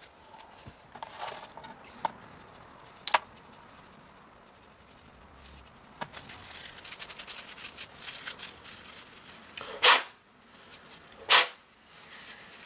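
A few light clicks of small metal turbocharger parts being handled. Near the end come two short, loud puffs of breath blown through a part to dry off the paint thinner, about a second and a half apart.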